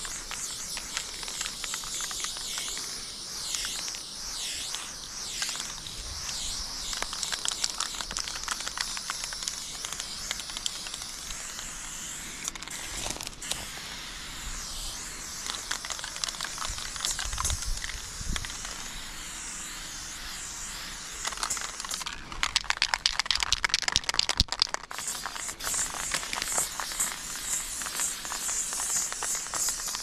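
Aerosol spray paint can hissing as black paint is sprayed close onto a concrete wall, in long bursts with a few brief pauses.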